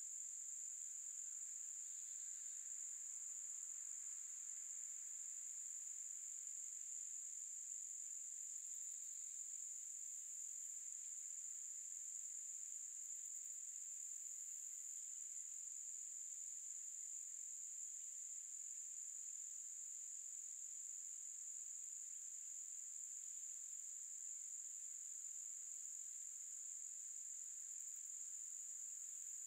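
Insects trilling in one continuous, steady, high-pitched drone that doesn't break or change.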